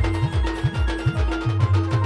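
Adivasi band playing rodali dance music: a fast, dense drum beat with deep bass hits that swoop in pitch, under a short held melody note repeated over and over.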